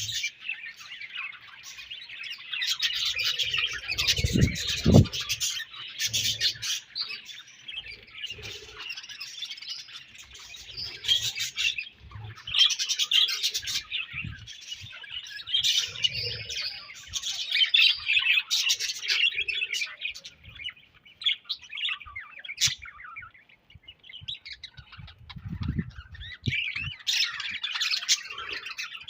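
A colony of budgerigars chirping and warbling together in a continuous, overlapping chatter. The chatter thins out briefly past the middle, and a few low thumps come about four seconds in and again near the end.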